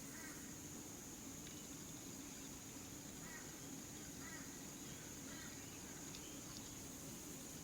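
Quiet outdoor background of a steady, high-pitched insect drone over a low steady hum, with a few faint short chirps. No sneeze or other sudden sound stands out.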